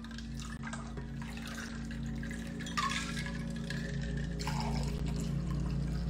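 Liquid being poured into a cocktail glass, splashing, with a steady low hum underneath.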